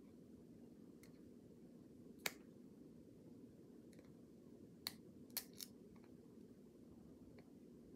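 Near silence with a faint steady hum, broken by a few sharp clicks from handling: the loudest about two seconds in, and three in quick succession around five seconds in.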